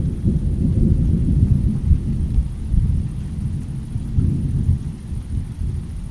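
Thunder rolling in a rainstorm: a loud, deep rumble that swells over the first few seconds and then eases off.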